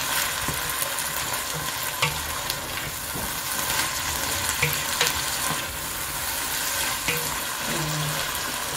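Chopped onions, tomatoes and peppers sizzling in hot oil in an enamel pot while being stirred with a wooden spoon. A steady frying hiss runs throughout, with a few light clicks of the spoon against the pot.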